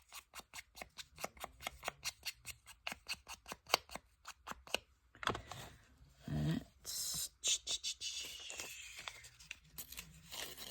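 Scissors cutting paper in quick, even snips, about five a second, which stop about five seconds in. Softer rustling and handling noises follow.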